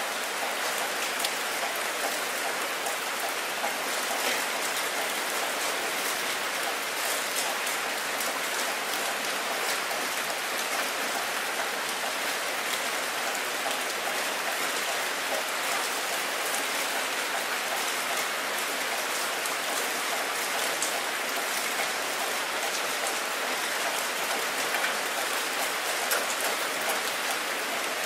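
Rainstorm rain falling steadily onto open water, an even hiss dotted with the ticks of single drops.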